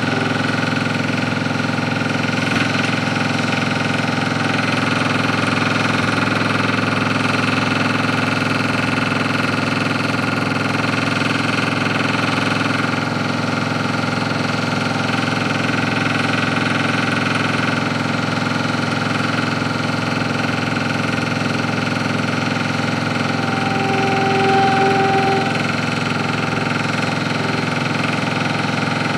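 Steady drone of an engine or machine running, with a brief higher tone rising above it near the end.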